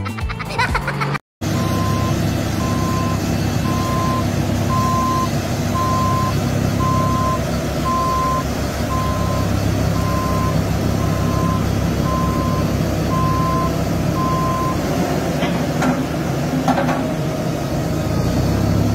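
Heavy construction vehicle's engine running steadily while a back-up alarm beeps about once a second, a dozen or so single-tone beeps that stop about three-quarters of the way through. Two short sharp sounds follow near the end.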